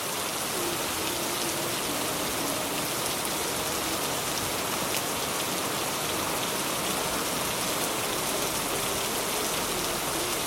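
Heavy rain falling steadily, an even hiss with the patter of drops.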